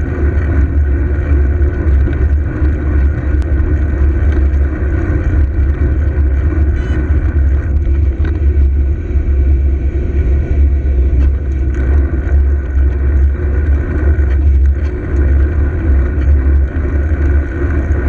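Steady, loud low rumble of road and traffic noise heard from a camera on a moving bicycle, with cars following close behind.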